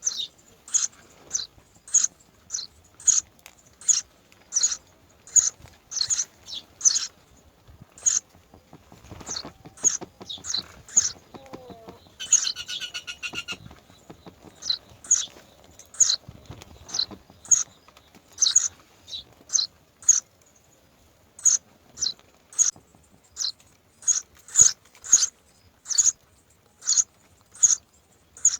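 Myna birds giving short, high-pitched chirps, repeated a little more than once a second. About twelve seconds in there is one longer, harsher call.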